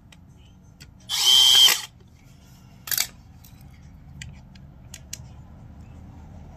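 Cordless drill driving a screw into the plastic housing of an airless paint sprayer's pump, in one short run of under a second with a motor whine. A knock follows about a second later, then a few light clicks.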